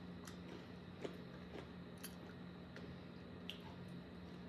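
Faint close-up chewing of chocolate-covered caramel nuts, with a few small, sharp wet mouth clicks scattered through it.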